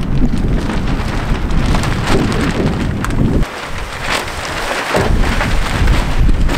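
Strong, gusty wind buffeting the microphone: a loud low rumble that surges and eases with the gusts, dropping briefly about three and a half seconds in.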